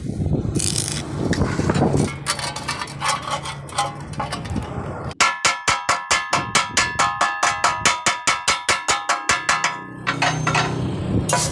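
Thin steel square tube struck rapidly with a hammer, about six taps a second for some four seconds, each tap ringing with a clear metallic tone. Before the tapping there is irregular scraping and rubbing on the metal.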